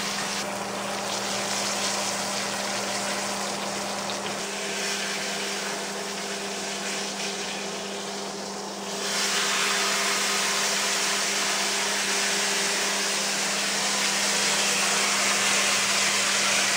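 Ribeye steak sizzling in oil in a frying pan, over the steady hum of a kitchen range fan. The sizzle grows louder from about nine seconds in as the steak is moved around in the pan.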